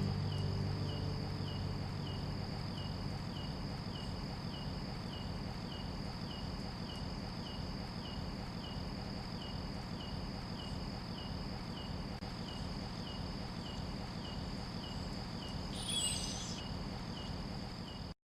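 Insects calling: a steady high trill with a regular chirp about twice a second, under the tail of background music that fades out in the first few seconds. A brief higher call sounds about sixteen seconds in, and the sound cuts off abruptly at the end.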